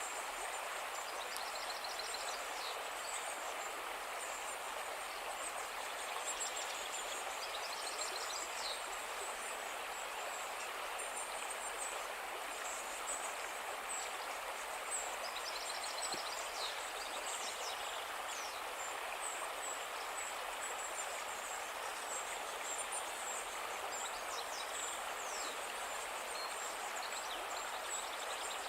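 A calm river flowing steadily, a continuous even rush of water. Small birds chirp and trill high above it now and then, with short repeated trills around the third, eighth and fifteenth seconds.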